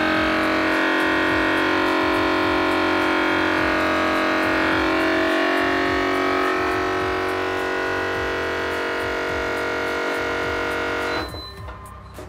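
Fresh World vacuum sealer's pump running with a steady drone while it draws the air out of a bag, cutting off abruptly about 11 seconds in as the vacuum cycle ends. Background music with a beat plays underneath.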